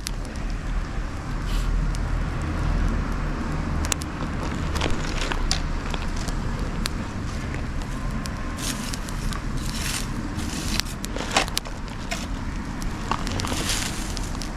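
Wood bonfire of dried logs and branches burning, crackling with irregular sharp pops over a steady low rumble.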